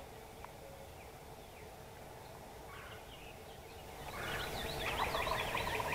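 Osceola wild turkey gobbling: a rapid rattling run of notes that starts about four seconds in and lasts a couple of seconds, after a few faint bird calls.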